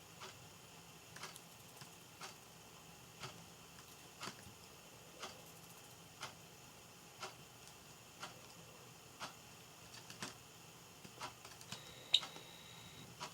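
A clock ticking steadily, about once a second, with a few fainter irregular clicks in between. Near the end comes a louder sharp click with a brief thin high tone.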